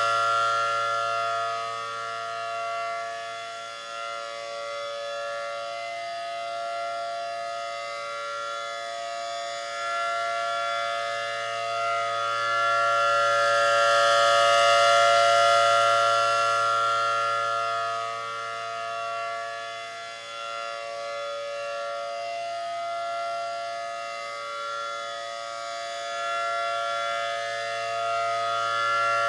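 ACA Allertor 125 outdoor warning siren sounding its full-alert signal, a steady chord of several pitches that does not rise or fall in pitch. Its loudness swells and fades slowly as the siren head rotates, loudest about halfway through.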